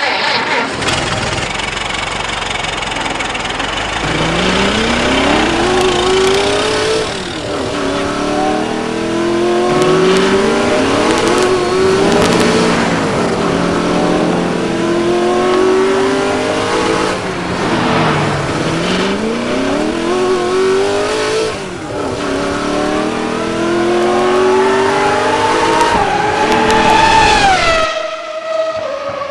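An engine revving up and dropping back over and over, each rise climbing in pitch for a few seconds; near the end the pitch falls and settles into a steady tone.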